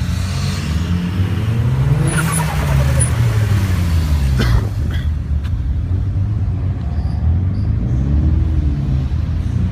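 Car engines running close by, with a steady low drone. The engine note rises and falls twice, as a car revs or drives past. A sharp click comes about four and a half seconds in.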